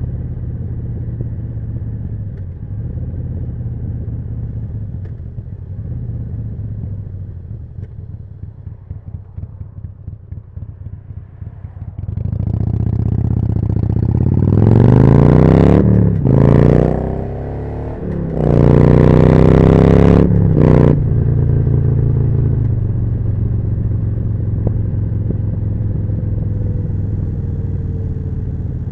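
Harley-Davidson Forty-Eight's air-cooled 1200 cc V-twin through a Jekill & Hyde exhaust, running low and steady, then easing off to a lumpy, pulsing beat. About twelve seconds in it accelerates hard twice, rising in pitch and at its loudest, with a gear change cutting the sound briefly between the two pulls. It then settles into a steady cruise.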